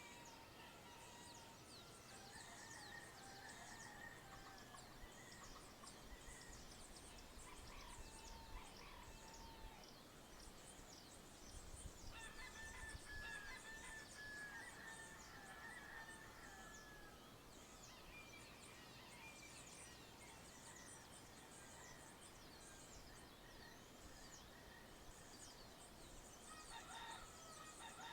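Faint dawn chorus: many small birds chirping rapidly and continuously, with roosters crowing several times.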